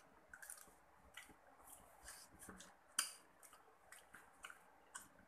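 Faint, scattered wet mouth sounds of chewing and lip smacking while eating spicy fried chicken with rice, with one sharper click about three seconds in.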